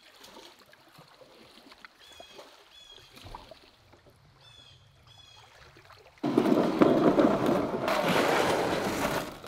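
Lake water sloshing and splashing loudly for about three seconds, starting suddenly about six seconds in and cutting off just as suddenly. Before it, a quiet stretch with a few short, high chirps.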